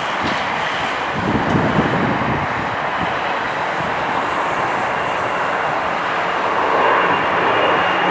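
Jet airliner's engines running, a steady rush of noise with a thin high whine over it, and wind buffeting the microphone about one to two seconds in.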